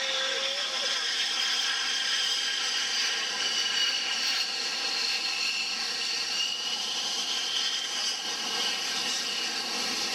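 Jet aircraft engines running with a steady high-pitched whine whose tones drift slowly in pitch.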